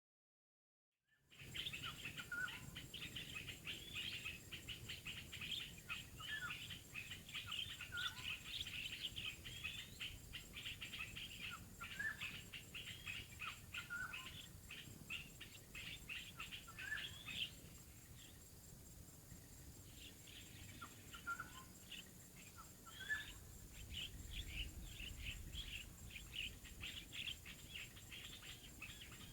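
Small birds chirping and twittering in quick, high calls, thinning briefly about two-thirds of the way through.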